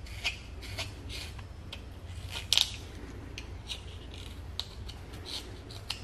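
Carving knife paring thin shavings from a wooden bird blank while roughing out its rounded shape: short slicing cuts about two a second, one louder near the middle.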